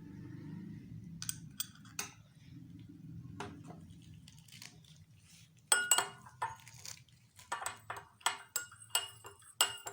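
A metal spoon against glassware, with a few separate light knocks at first. From about halfway it becomes a quick, irregular run of ringing clinks as honey is spooned out.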